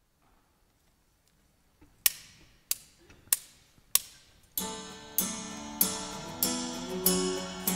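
Four sharp clicks at a steady tempo count the song in, then the band comes in about halfway through with acoustic guitar strumming chords on that same beat.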